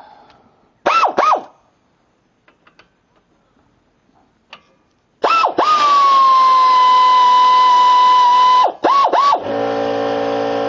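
Pneumatic air ratchet running fasteners. First two short whining spins, then a long steady whine of about three and a half seconds that dips slightly in pitch as it settles, then two quick blips. Near the end a lower, steady multi-tone hum sets in under it.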